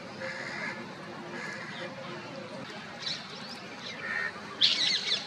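Parrots squawking as they squabble: short harsh calls about every second, then a burst of louder, shrill screeches near the end.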